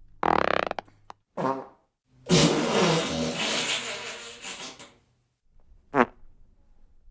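Fart sound effects, one after another: a short fart, a second brief one, a long sputtering fart lasting about three seconds, then a short sharp one near the end.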